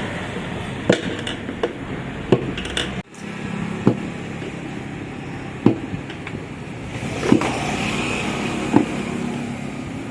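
Sharp, irregular metal knocks and clinks from tyre-fitting work on a motorcycle wheel, roughly one every second or two, over a steady workshop hum.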